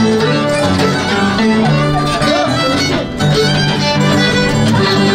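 Andean folk music played on violin over plucked string accompaniment, with held bass notes, dipping briefly about three seconds in.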